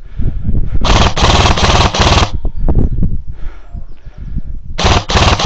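Airsoft gun firing two rapid full-auto bursts, each a little over a second long, the second starting near the end.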